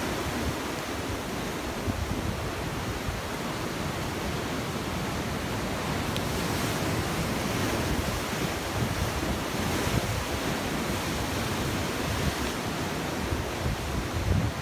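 Heavy sea surf breaking over rocks and washing through the foam in a continuous rush, with a louder surge near the end.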